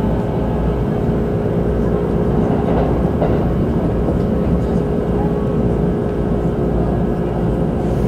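Inside a Keikyū 2100 series electric train running at a steady speed: wheels rumbling on the rails under a constant hum that holds one pitch throughout.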